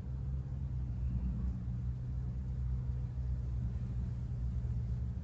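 Steady low hum of many honeybees flying around an opened hive while comb frames are being handled.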